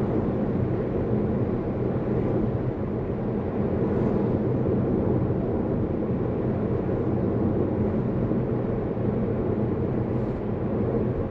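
Steady road and tyre rumble with engine hum, heard inside a moving car's cabin.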